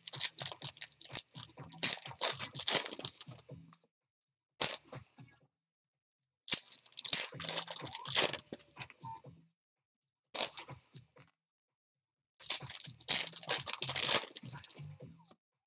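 A Bowman baseball card pack's wrapper being torn open and crinkled by hand: crackly tearing and crinkling in five bursts, with silent gaps between them.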